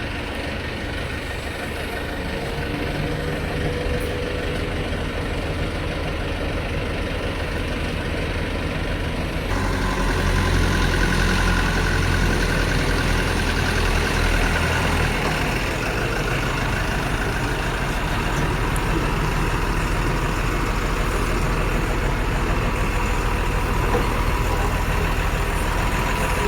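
A heavy diesel engine idling and running steadily. It grows louder and deeper about ten seconds in.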